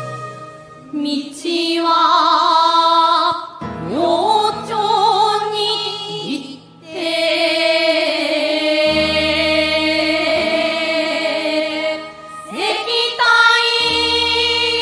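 A group of young women chanting a classical Chinese-style poem together in Japanese shigin style: long held notes with a wavering, ornamented pitch, each phrase opening with an upward swoop, over steady sustained accompaniment notes. There are short breaks between phrases.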